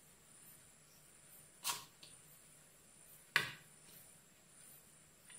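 A metal spoon scooping filling from a bowl into a pastry cone: a short scrape about a third of the way in and a sharp click a little past halfway. Faint steady high chirring of crickets underneath.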